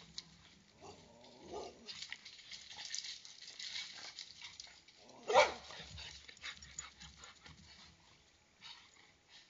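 An animal's short bark-like calls, a faint one and then a louder one about five seconds in.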